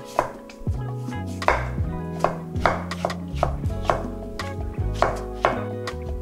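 Kitchen knife slicing cucumber into thin strips on a wooden cutting board, the blade knocking on the board about twice a second, over soft background music.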